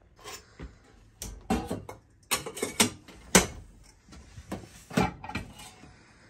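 Kitchen clatter: a stainless steel stovetop kettle knocked and clanked on a metal electric hob while a plastic fruit tub is handled, a string of sharp knocks and clanks.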